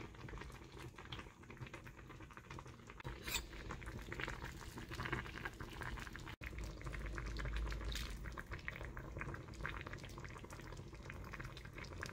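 Broth bubbling at a simmer in a ceramic hot pot of beef, mushrooms and noodles, faint and steady with fine popping. A spoon stirs through the pot now and then.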